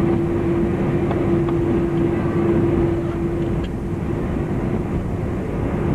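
Cabin noise inside a Boeing 747-400 on the ground after landing: a steady, dense rumble with a constant hum that weakens about halfway through.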